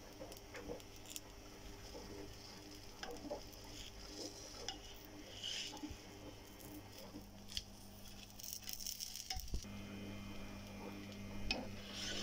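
Dosa sizzling on a hot iron tawa, with scattered clicks and scrapes of a metal spatula against the pan as the dosa is folded.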